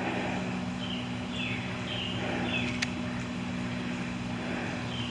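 A bird calling: a short, falling chirp repeated about every half second, over a steady low hum and outdoor background noise. A single sharp click comes about halfway through.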